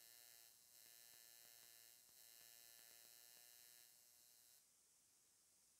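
Faint electrical buzz, a steady hum with many overtones, that dips briefly twice and cuts off about four and a half seconds in; faint ticks follow.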